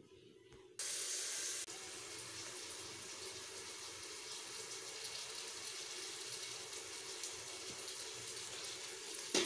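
Sliced onions sizzling in hot oil, being sautéed in a pot. The sizzle starts suddenly about a second in, is loudest for about a second, then settles into a steady, even sizzle.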